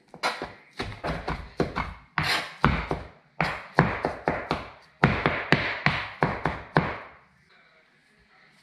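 Chef's knife rapidly chopping on a plastic cutting board, about five strikes a second, mincing raw snapper and green onions; the chopping stops about seven seconds in.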